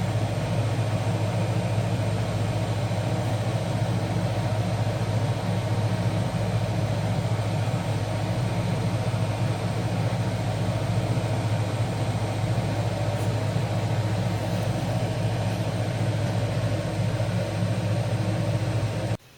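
Steady low mechanical hum, unchanging throughout, that cuts off suddenly near the end.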